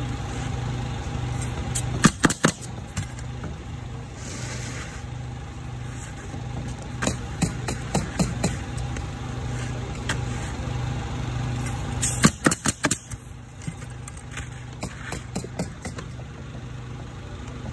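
Pneumatic coil roofing nailer driving nails through asphalt shingles, firing in short groups with a quick run of shots a little past the middle, over a steady motor hum.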